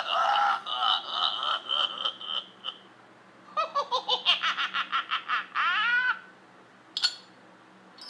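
Laughter in two bouts: the first about three seconds long, the second a quick run of evenly paced laughs; a short sharp click near the end.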